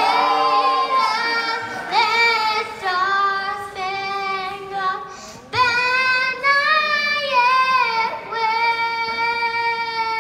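A young boy singing the national anthem solo into a handheld microphone over a PA, holding long notes, with a long steady note near the end.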